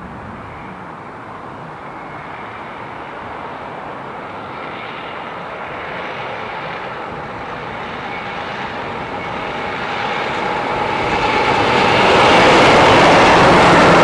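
English Electric Class 50 diesel locomotives hauling a passenger train, their engine drone growing steadily louder as the train approaches and becoming loudest about twelve seconds in as the locomotives pass close by.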